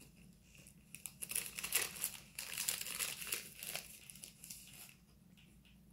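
Plastic snack wrapper crinkling as it is handled. It starts about a second in, is busiest for the next few seconds, and tails off near the end.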